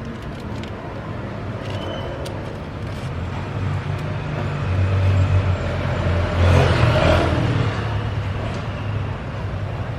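A car engine running with a steady low hum, which grows louder about halfway through and then eases off toward the end.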